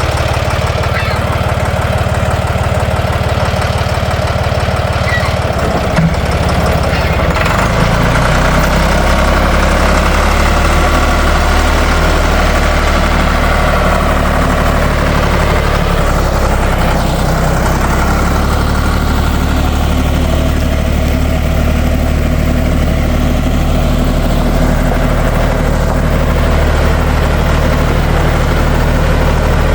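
Ditch Witch trencher-backhoe's air-cooled three-cylinder Deutz diesel running steadily. Its engine speed shifts about seven seconds in, then holds.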